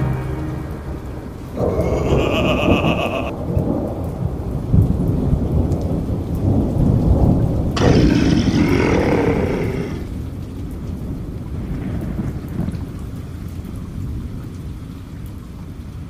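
Thunder rumbling over rain, with two louder crashes, one about a second and a half in and one about eight seconds in, then dying down toward the end.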